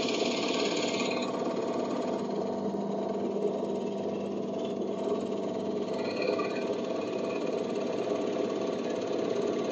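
Benchtop drill press motor running steadily while a 25 mm Forstner bit bores into pallet wood. The cutting is brightest and loudest for the first second or so.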